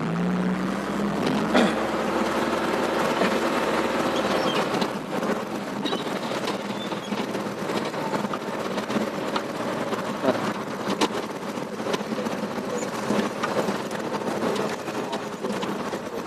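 Truck engine running as it drives, heard from inside the cab. Its note rises over the first second or two, with frequent rattles and knocks from the cab.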